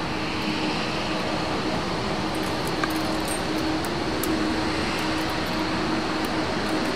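Steady mechanical hum with a constant low tone over a wash of noise, unchanging throughout, with a few faint small clicks.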